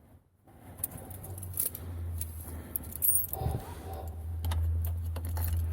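A vehicle key ring jangling and clicking, as at the ignition of a diesel before starting. A steady low hum comes in about a second in and grows louder from about four seconds.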